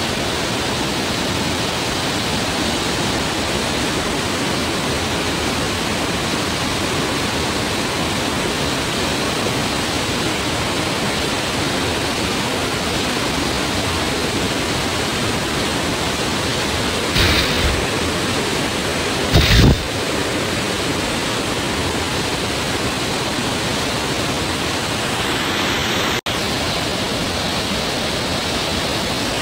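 Steady rush of a small waterfall pouring over rocks into a stream. Two brief thumps come about two-thirds of the way through.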